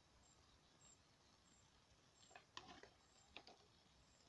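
Near silence, broken from about halfway through by a few faint clicks of a metal fork against an aluminium mess tin as sausages are moved in beans.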